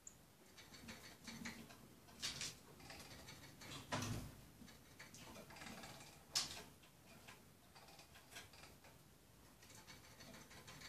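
Faint irregular clicks and ticks of a small finch's bill pecking and crushing red berries in a glass dish, with a few sharper clicks and one duller knock about four seconds in.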